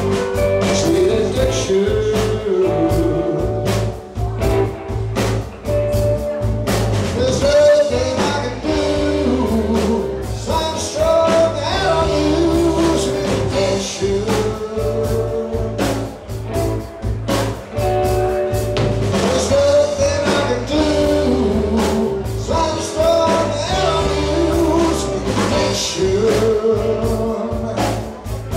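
Live rock band playing a blues-rock song: drum kit, electric bass and electric guitar, with a lead melody line sliding and bending in pitch over the steady beat.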